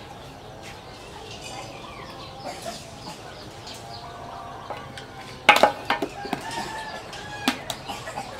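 Chickens clucking in the background, with a few sharp clinks and knocks about halfway through and near the end as a metal spoon strikes a milk-powder can.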